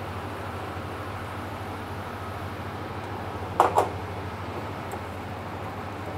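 A metal ladle knocks twice in quick succession against a small metal saucepan as red curry paste is worked into coconut cream. A steady kitchen hum runs underneath.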